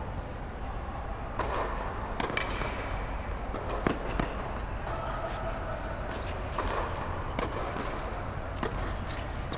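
Tennis rally: racket strikes and ball bounces on a hard indoor court as a string of sharp pops, the loudest about four seconds in from the near player's stroke. A short high squeak comes near the end.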